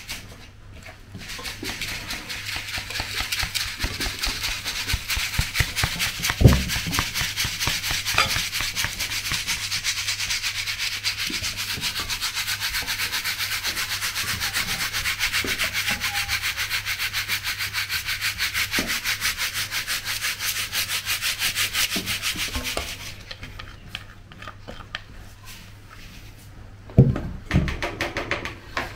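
Green plastic sieve shaken hard with ground cocoa powder, a fast, even scraping as the powder is sifted through the mesh onto an aluminium tray, with a knock about six seconds in. The scraping stops about two-thirds of the way through, followed by quieter handling and a couple of loud knocks near the end.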